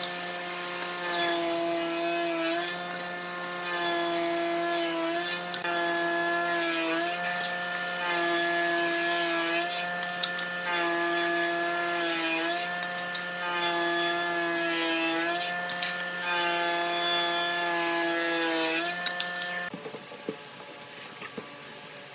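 Wood lathe running while a turning tool cuts the spinning wooden blank: a steady motor hum under a loud scraping hiss of the cut, the pitch wavering every second or two as the tool passes. The cutting and hum stop suddenly near the end.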